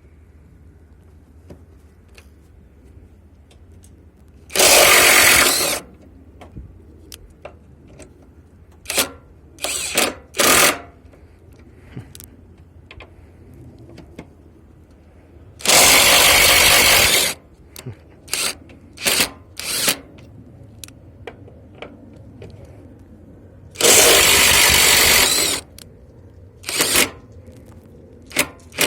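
AutoJare B1803 cordless brushless half-inch impact wrench hammering in three loud bursts of about a second and a half each. Between them come several short trigger blips.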